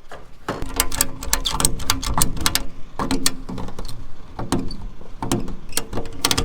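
Ratchet strap being worked to hold down a lid, giving a run of irregular sharp metallic clicks and clanks.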